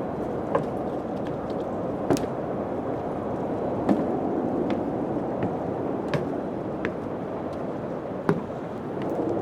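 Steady wind blowing, with a few sharp knocks and clicks at irregular intervals of a second or two.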